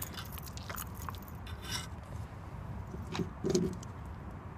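Scraping and rubbing handling noises close to the microphone from hands, jacket sleeve and fishing gear while a caught chain pickerel is held, with a few light clicks and a dull thump about three and a half seconds in.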